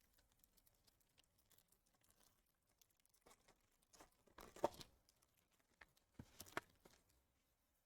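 Faint handling of a baseball card pack: two short rips of the wrapper being torn open, the louder about halfway through and another a couple of seconds later, with light crinkles and clicks between.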